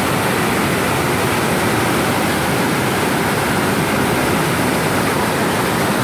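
Swollen, muddy flood river rushing and churning over rapids in whitewater, a loud, steady sound of fast-moving water. The river is in spate after continuous heavy rain.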